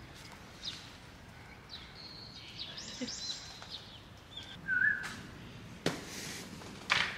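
Outdoor garden ambience with scattered short, high bird chirps and one brief warbling call about five seconds in. A few brief sharp taps about five, six and seven seconds in are the loudest sounds.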